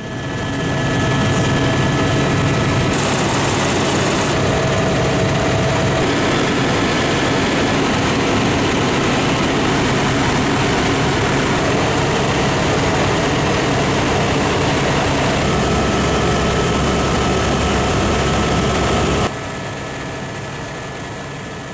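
Helicopter in flight: loud, steady engine and rotor noise with a few held tones in it. It drops suddenly in level a couple of seconds before the end.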